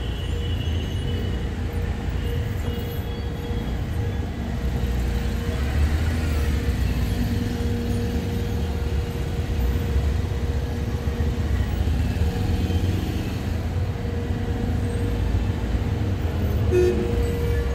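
Busy road traffic: a steady low rumble of passing vehicles, with car horns honking now and then.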